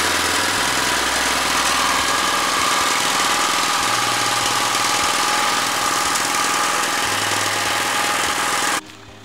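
Small single-cylinder petrol engine of a garden cultivator running steadily at idle, its carburetor just repaired. The sound cuts off suddenly near the end.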